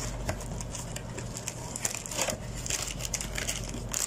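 Cardboard carton of a Canon SELPHY ink-and-paper set being opened and handled by gloved hands: soft scraping and rustling as the flap is pulled and the contents slide out, with scattered light clicks, over a low steady hum.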